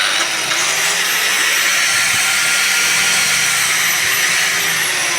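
Handheld cutter machine with a newly fitted armature, its brushed motor running steadily at speed: a loud, even whir with a faint high whine above it.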